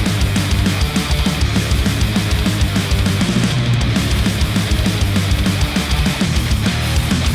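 Heavy rock music with a driving beat, played back through a Sennheiser open-back headphone and picked up by microphones at the headphone.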